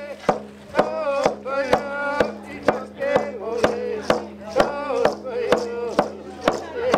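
Painted octagonal hand drum beaten with a stick beater in a steady beat, about two strikes a second, while a voice sings a song over it.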